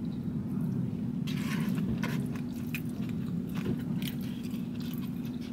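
A person chewing food, with clicks and scrapes of a plastic fork in a takeout bowl from about a second in, over a steady low hum inside a car.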